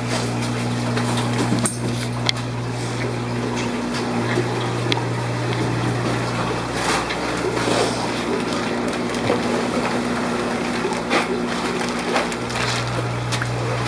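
Steady low hum of fish-room water pumps and running water, with scattered clicks and rustles of handling. The hum drops out briefly about four seconds in.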